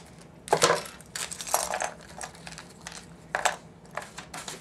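Scissors snipping open a plastic toy packet, then small hard plastic building pieces clicking and clattering onto the tabletop in a few short bursts.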